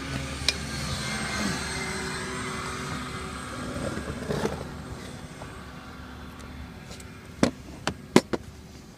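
A steady motor hum swells over the first four seconds or so and fades. Then come three sharp metallic clicks near the end as the parts of the elebia e5 lifting hook are handled.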